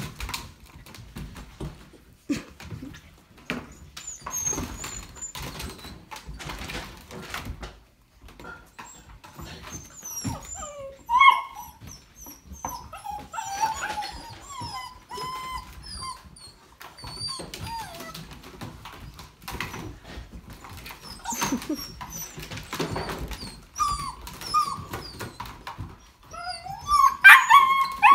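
Young German Shepherd puppies whimpering and squeaking in high, short whines, over the scrabbling and rustling of the litter moving about; the cries grow louder near the end.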